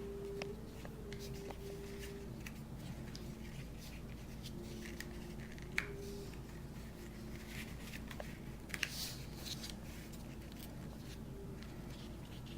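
Quiet handling of paper and cardstock while a card is put together: soft rustles and scattered light clicks, a sharper one about halfway through, over a faint steady hum.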